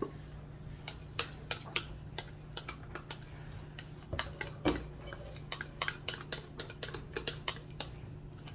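A spoon clicking and scraping against the inside of a plastic measuring cup as thick mustard is scraped out into a glass bowl: a run of irregular light clicks, a few each second.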